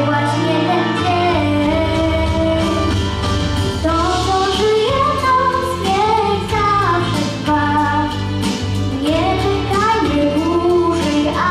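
A young girl singing a pop-style song through a microphone over instrumental accompaniment, her voice carrying a sustained, wavering melody above a steady bass line.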